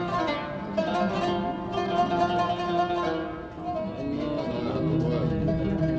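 Background music on plucked string instruments, a melody of quick picked notes.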